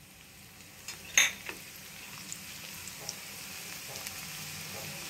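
Finely chopped garlic sizzling in hot oil in a kadai, the frying hiss slowly building, with a short knock about a second in.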